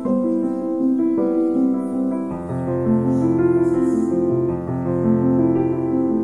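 Instrumental background music with held, changing notes; a lower part comes in about two seconds in.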